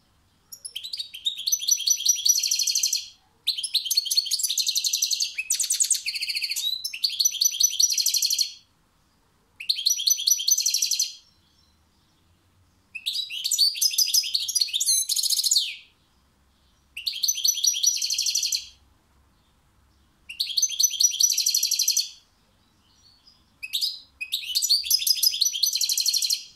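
European goldfinch singing: high-pitched phrases of rapid twittering and trills, each one to five seconds long, repeated about seven times with short pauses between.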